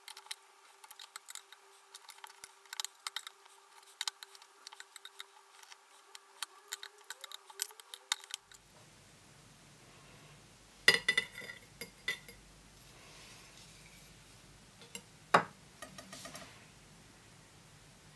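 Faint scattered clicks and light taps of small objects being handled, with a few sharper knocks about eleven and fifteen seconds in.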